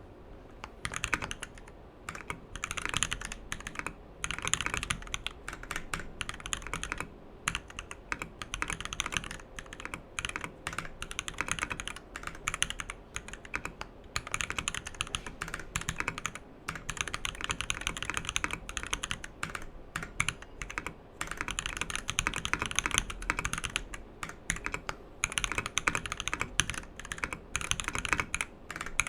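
Steady typing on a custom mechanical keyboard: a Cypher 1800-layout compact with a top-mounted brass plate, lubed Durock POM linear switches and PBT keycaps. The key strokes are high-pitched clacks in fast runs with short pauses between.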